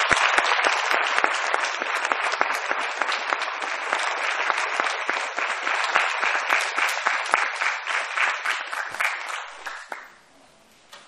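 Audience applauding: dense, steady clapping from many hands that fades out about ten seconds in.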